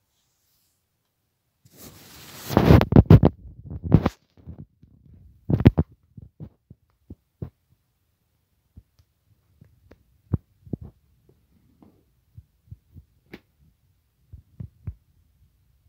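Plastic DVD case and discs being handled close to the microphone: a loud burst of clattering and knocking about two to four seconds in, another short clatter a little later, then scattered light clicks and taps of plastic.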